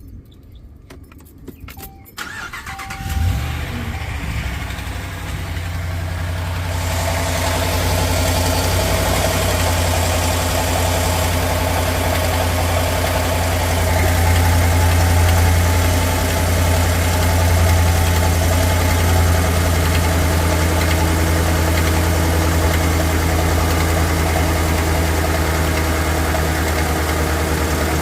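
A 2015 Ram 1500 pickup engine is cranked briefly and catches about three seconds in. It then settles into a steady cold idle with an intermittent tap, tap, tap. The tap comes from a failed number 5 intake lifter, whose needle bearings are worn or gone.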